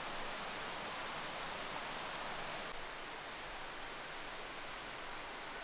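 Steady rushing of flowing mountain-stream water, its upper hiss dipping slightly about three seconds in.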